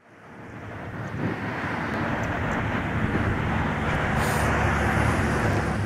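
Distant Boeing 777 airliner on final approach: a steady low rumble that fades in over the first second.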